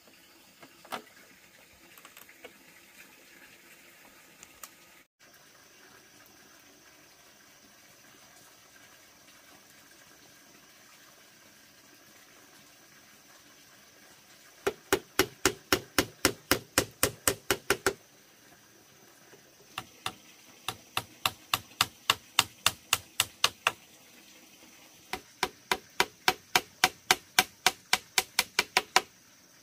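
Small hammer driving nails through split bamboo slats into a bamboo frame: three runs of quick, even blows, about five a second, each run lasting a few seconds, in the second half.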